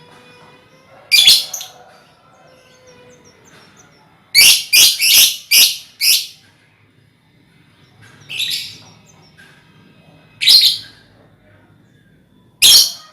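A colony of young lovebirds calling with shrill shrieks: one early, a quick run of five about four seconds in, then single shrieks every two seconds or so, over faint twittering.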